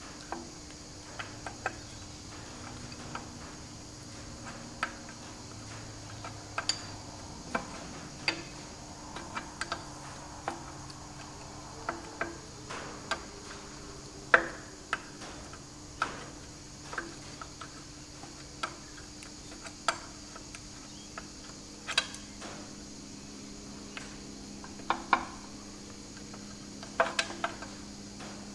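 Irregular sharp metallic clicks and taps of hand tools working a small fitting on a tractor gearbox housing, roughly one a second, over a steady faint hum.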